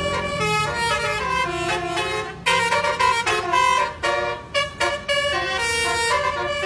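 Bus 'telolet' multi-tone air horn playing a quick tune of stepped notes, with a brief break and a louder restart about two and a half seconds in, over a low rumble.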